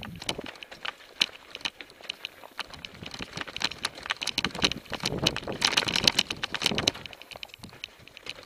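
Mountain bike clattering down a rocky track: a dense run of rattles and knocks as the tyres hit loose stones and the bike shakes, busiest about five to seven seconds in.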